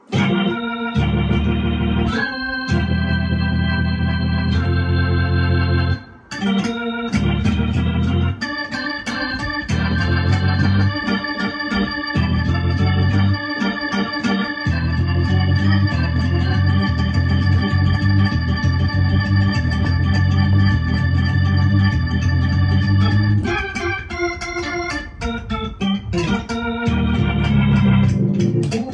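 Electronic keyboard played with an organ sound: long held gospel praise chords over bass notes, with a brief break about six seconds in.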